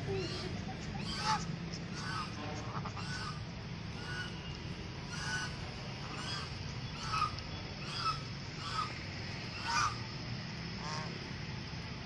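Domestic ducks giving short calls, about a dozen spaced irregularly, over a steady low hum.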